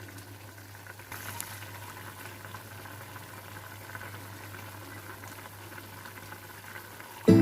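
Sapo tahu sauce bubbling at a steady simmer in a pan, with a low steady hum underneath.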